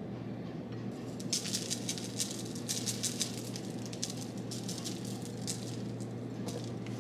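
Tajín chili-lime seasoning shaken from its plastic shaker bottle, the granules pattering onto a syrup-coated glass rim and a paper plate in quick, uneven rattling shakes from about a second in until near the end. A steady low hum runs underneath.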